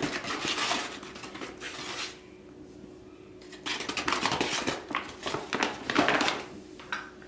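Flour poured from a paper bag into a stainless steel mixing bowl, with the paper bag rustling. After a lull about two seconds in, the bag rustles and crinkles again as more is poured and the bag is folded shut.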